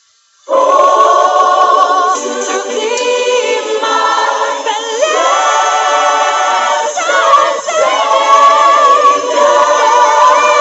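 Church choir singing a gospel hymn a cappella, several voices together, starting abruptly about half a second in.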